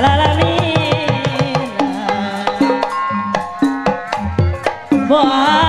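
Sundanese jaipongan music led by the kendang barrel drum, a rapid run of sharp slaps and deep booming strokes over steady pitched gamelan accompaniment. A wavering sung line comes back in near the end.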